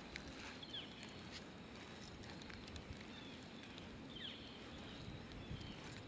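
Faint outdoor ambience with a few short, falling bird chirps now and then, over a low hiss.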